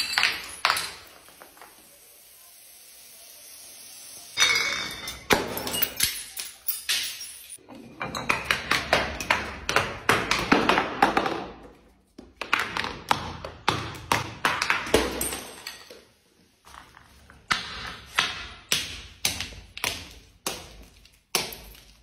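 Small bottles tumbling down granite stairs, a rapid series of sharp clinks and knocks as they strike step after step. The falls come in several separate runs.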